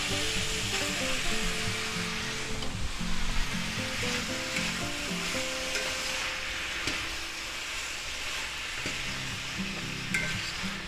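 Vegetables and canned mushrooms sizzling steadily in a cast iron skillet, with a few light knocks of a utensil.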